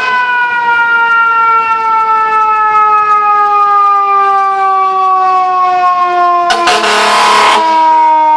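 Fire truck siren wailing in one long, slowly falling tone. About two-thirds of the way through, a blast of about a second from the truck's air horn cuts in over it.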